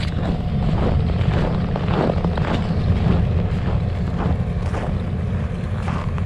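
Tyre and wind noise inside a Hyundai Ioniq Electric driving at highway speed, with no engine sound: a steady low rumble with irregular small knocks.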